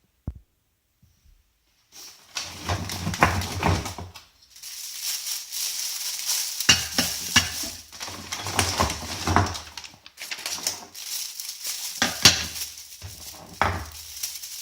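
Plastic roasting bag crinkling and rustling as it is handled and frozen cod fillets are put into it, starting about two seconds in.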